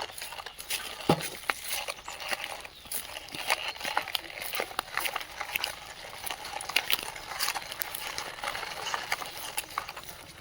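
Small rocks and gravel clattering and scraping as toy construction machines move them, with many irregular sharp clicks and knocks.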